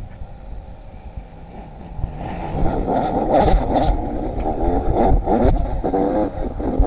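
Dirt bike engine on a gravel trail, running quietly for about the first two seconds, then revving up and down repeatedly, over a low rumble of wind on the microphone.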